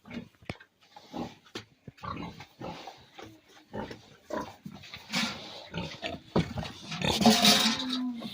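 Pigs grunting in short, irregular calls, with a longer, louder squeal about seven seconds in.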